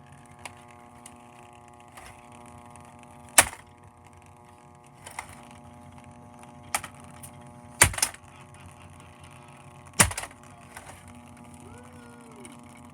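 A few sharp clicks or knocks, one of them doubled, over a steady hum of several tones.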